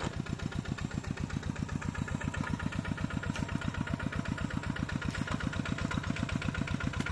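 Tractor engine running steadily, with an even chugging of about ten beats a second.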